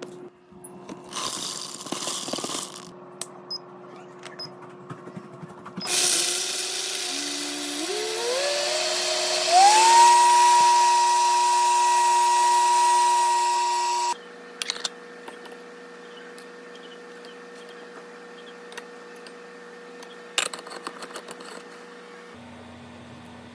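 Royal Prestige blender motor starting up, climbing in pitch in steps to full speed and running with a steady high whine. It then cuts off abruptly. A brief clattering comes before it and a few clicks after.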